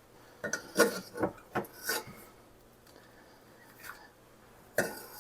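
Butter being scraped and cut with a kitchen utensil: a run of short rasping strokes in the first two seconds, then one more near the end.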